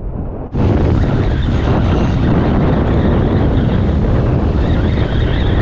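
Wind buffeting the microphone over the rush of waves breaking and washing across the reef rocks. A muffled stretch gives way abruptly about half a second in to a steady, loud, full rush.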